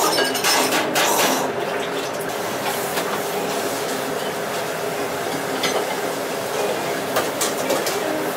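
Ramen noodles slurped from a bowl for about the first second and a half, a wet, noisy rush. Then a steady background hum with a few light clicks of tableware.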